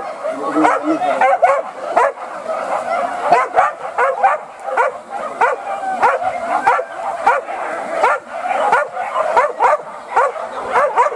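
A pack of hunting dogs barking and yelping without a break, many voices overlapping.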